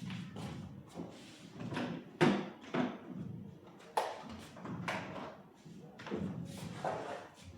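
Irregular knocks, taps and clatter of hard objects being handled during a soundbar repair, a dozen or so in all. The sharpest knock comes a little over two seconds in.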